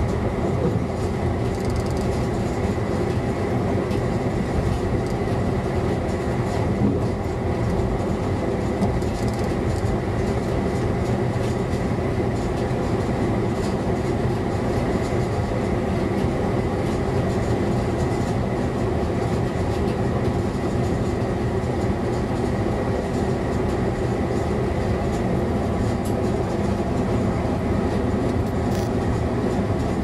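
ČD class 854 diesel-hydraulic railcar under way, heard from the driver's cab: a steady engine drone mixed with wheel and rail noise, with no marked change throughout.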